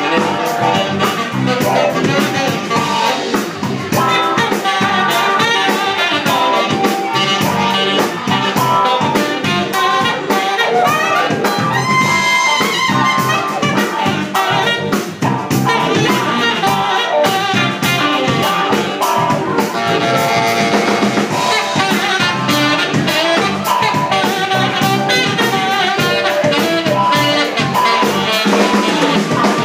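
Jazz band playing an instrumental passage: saxophone and brass lines over a drum kit.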